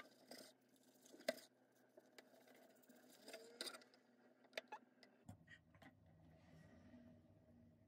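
Quiet crunches and taps of a kitchen knife cutting through a seaweed-wrapped gimbap roll and knocking on a plastic cutting board, the loudest tap about a second in, over a faint steady hum.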